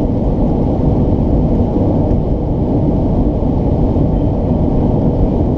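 A car at highway speed, heard from inside the cabin: a steady, loud, low engine, exhaust and road noise that does not change. The driver cannot tell whether it comes from an engine knock or an exhaust leak.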